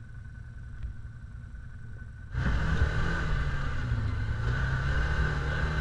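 Side-by-side UTV engine heard from on board: a quiet low idling rumble, then about two seconds in an abrupt change to the louder, steady running drone of the machine driving along the trail.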